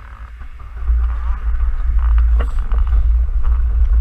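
Wind rumbling on the microphone of a bike-mounted camera as the bicycle gets moving, coming in about a second in and holding steady, with light clicks and rattles from the bike on the road.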